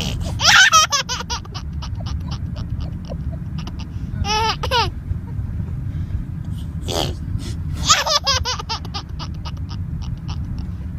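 Baby laughing in several bursts: a high laugh about half a second in that runs into a string of short, quick laugh pulses, a brief high wavering laugh around four seconds, and another laugh with a run of pulses near eight seconds. A steady low rumble lies underneath.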